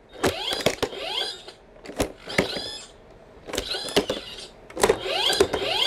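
Electronic Iron Man Nano Gauntlet toy playing short sound effects as its fingers are moved one at a time. There are about four effects in turn, each opening with a sharp click and carrying sweeping pitch.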